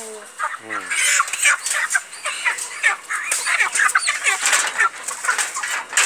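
Broiler chickens crowded in a wire weighing cage, clucking and squawking almost continuously in short overlapping calls, with bursts of wing flapping.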